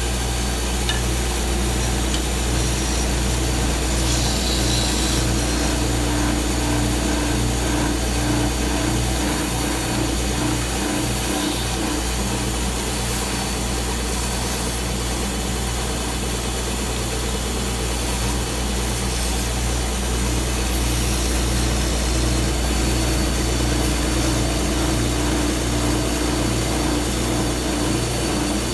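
Stationary sander running steadily with a constant motor hum, with the rasp of a wooden box being sanded against it.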